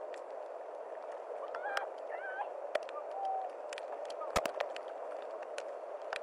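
Steady rush of fast-moving floodwater, heard through a police body camera's microphone, with faint distant shouted voices in the first few seconds. A couple of sharp knocks about four seconds in are the loudest sounds.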